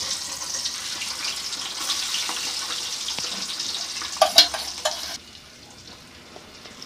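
Boiled eggs sizzling as they fry in hot oil in a pressure cooker, a steady hiss with a few short knocks about four seconds in. About five seconds in, the sizzle drops suddenly to a faint hiss.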